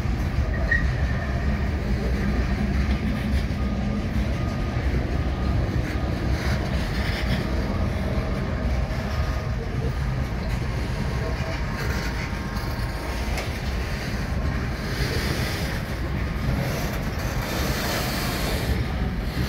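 A freight train's loaded steel gondola cars rolling past close by: a steady rumble and rattle of steel wheels on the rails. A harsher hiss comes in near the end.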